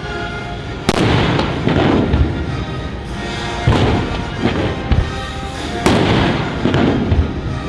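Background music with held tones and loud booming hits about every two to three seconds.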